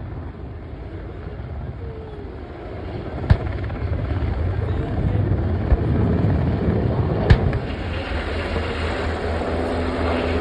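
UH-60 Black Hawk helicopter flying low, its rotor beating steadily and growing louder a few seconds in. Two sharp bangs cut through it, about three seconds in and again about seven seconds in.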